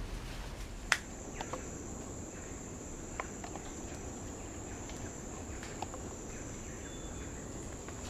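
A sharp click about a second in, then a steady high-pitched drone of rainforest insects, with scattered faint ticks.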